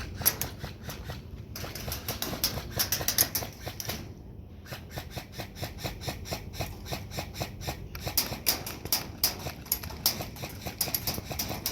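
Airsoft guns firing: sharp clicks and cracks in rapid strings of shots, with a short lull about four seconds in.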